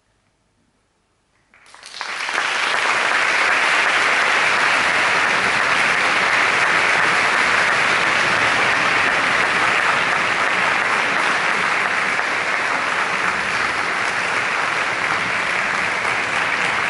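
Near silence, then an audience breaks into applause suddenly about a second and a half in, and the clapping carries on steadily.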